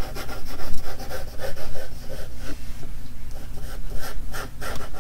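Graphite pencil scratching on paper in a run of short, irregular strokes as a large curved outline is sketched.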